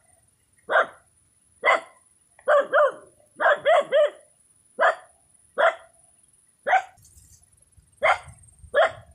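An animal's short, sharp calls, about a dozen of them, some single and some in quick pairs and threes, roughly one to two a second.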